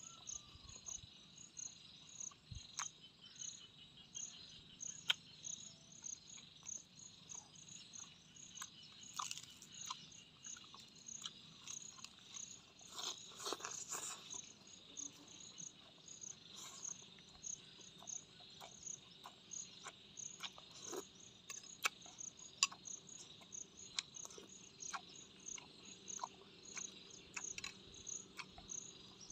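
Close-up eating sounds: chewing and crunching of boiled pork and raw leafy greens, with sharp crunches scattered throughout and a longer crunching bout about halfway through. Behind it, an insect chirps steadily in an even pulsed rhythm, about one and a half pulses a second.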